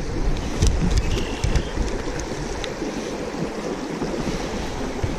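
Shallow creek water running over a gravel riffle, a steady rushing, with wind buffeting the microphone.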